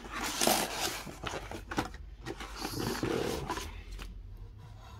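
Paper leaflets and cardboard packaging rustling and scraping as they are handled and lifted out of a phone's shipping box. The loudest rustle comes about half a second in, with more scraping around the middle.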